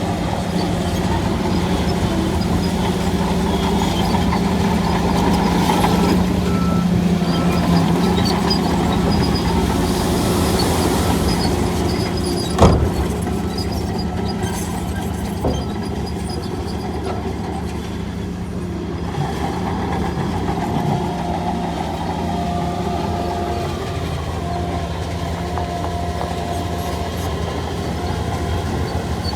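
Heavy diesel earthmoving machinery running steadily under load, with one sharp bang a little under halfway through.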